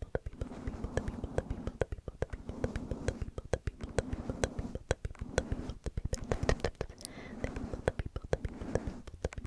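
Crackly scratching and brushing strokes rubbing against a fluffy microphone windscreen, coming in patches about once a second.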